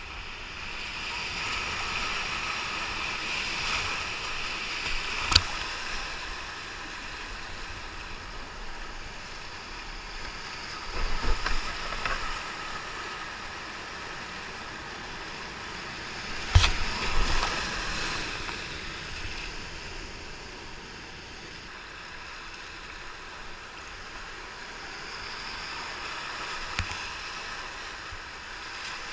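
Rushing whitewater of river rapids heard close up from a kayak running them, a steady hiss of churning water. Sharp knocks cut through it about five seconds in, twice around eleven to twelve seconds, and loudest at about sixteen and a half seconds.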